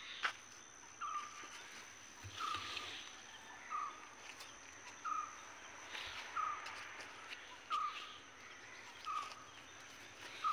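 An animal's short call repeating at an even pace, about once every second and a half, over a faint steady high tone. A few brief bursts of rustling come in between.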